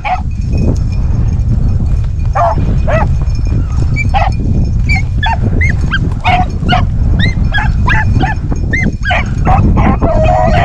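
A pack of rabbit hounds baying and yelping in short rising-and-falling calls, several voices overlapping and coming thicker from about two seconds in: the hounds giving voice as they run a rabbit's trail. A steady low rumble lies under the calls.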